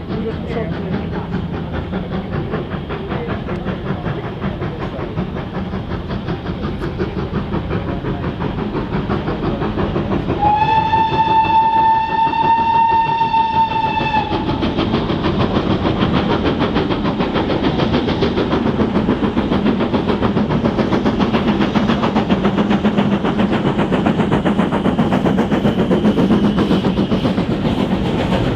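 Steam locomotive running under power with a steady rapid beat, and one long whistle blast of about four seconds, starting about ten seconds in.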